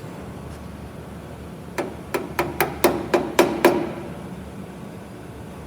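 Eight quick hammer taps on a steel patch panel as it is worked into place in a truck door, about four taps a second, each with a short metallic ring, over a steady low hum.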